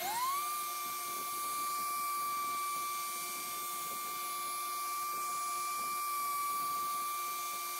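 Milwaukee random orbit sander spinning up to speed with a quickly rising whine, then running steadily with a high whine and hiss while it sands a birch slab at 220 grit.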